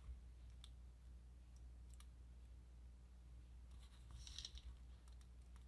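Near silence with a low steady hum and a few faint light clicks as a pinch of sprinkles is dropped by hand onto a freshly painted clay pretzel and the plastic sheet beneath. There is a brief soft patter of sprinkles about four seconds in.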